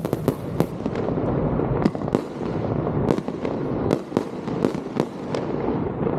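Fireworks display going off: a rapid string of sharp bangs over continuous rumbling and crackling from many shells bursting at once.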